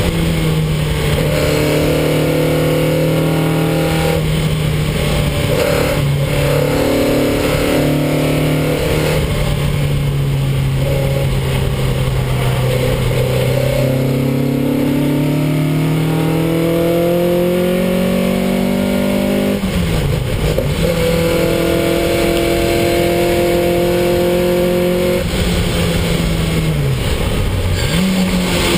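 Ford Anglia special saloon race car's engine heard from inside the cockpit, running hard under racing load. Its pitch climbs steadily through the middle, drops sharply about twenty seconds in as it shifts up a gear, holds, then dips briefly and rises again near the end.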